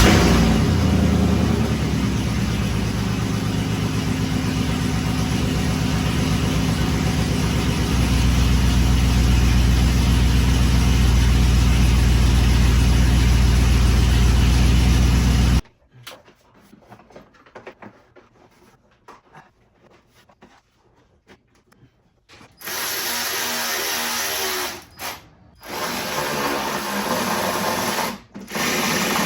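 Chevy Silverado SS 6.0-litre LQ9 V8 with long-tube headers running just after start-up, checked for the small exhaust-leak 'air sound' at a header flange just resealed with a new gasket and high-temp sealant; its low note gets heavier about eight seconds in and it cuts off abruptly about halfway. Near the end, two bursts of a power tool, a few seconds each.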